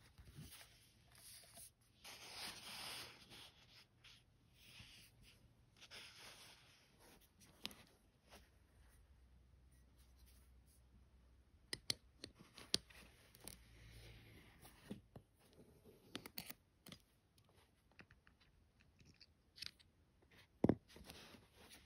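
Faint scraping and rubbing of small tools and fingers on a stainless steel watch case while a caseback wrench works the back off a quartz dive watch, with scattered sharp clicks of metal on metal, the loudest near the end.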